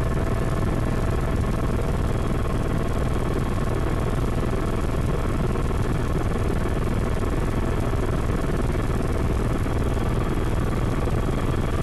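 Helicopter in flight, heard from inside the cabin: the engine and rotor run steadily, with a dense low rumble and a few steady whining tones above it.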